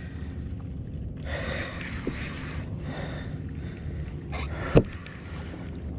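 Steady low wind-and-water noise on an ocean kayak, with two breathy swells of hiss in the first half and one sharp knock about three-quarters of the way through.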